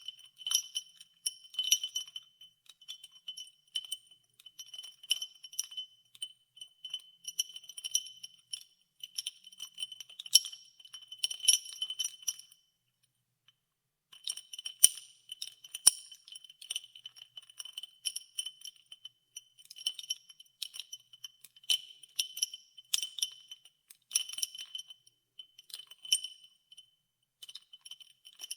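Ice cubes being stirred in a glass of water, clinking against the glass in quick irregular runs, each clink ringing with a high glassy tone. The clinking stops for about a second and a half near the middle, then resumes.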